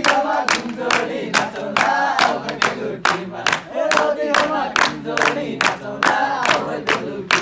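A group of young men singing a Nepali dohori refrain together, clapping their hands in time about twice a second.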